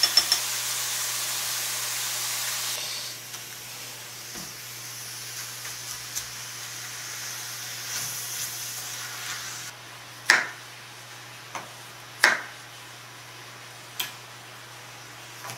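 Pork and vegetables sizzling in a frying pan as they are stirred with a spatula, the hiss dropping lower after a few seconds. About ten seconds in, a kitchen knife cuts garlic cloves on a wooden chopping board: four sharp strikes, the first and third the loudest.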